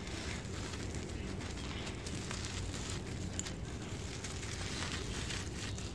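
Dry cement cup packed with charcoal and glitter being crushed and crumbled by hand: a steady, grainy crackling of breaking crust, with grit and powder falling onto loose dust.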